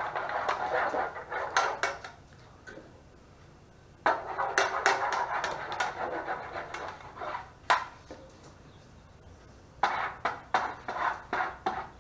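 A spatula scraping and tapping against a metal baking pan as tomato sauce is spread over its bottom, in three spells of scraping with sharp knocks among them.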